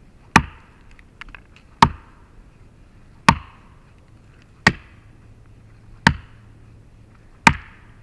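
A 4-pound Dayton-pattern felling axe chopping a notch into a birch trunk: six even strokes about one and a half seconds apart, each a sharp chop with a short tail after it.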